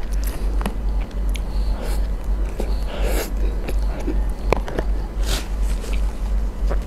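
Close-up eating sounds: mouth smacks and slurps as soft, creamy food is taken off a wooden spoon, with short clicks of the spoon against a plastic tub. A steady low hum runs underneath.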